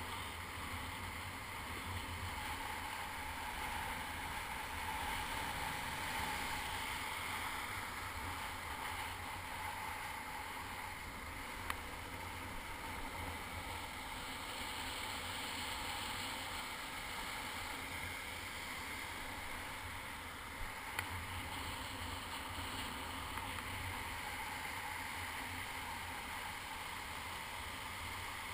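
Steady wash of breaking surf and foaming whitewater around a kayak, with a few brief knocks.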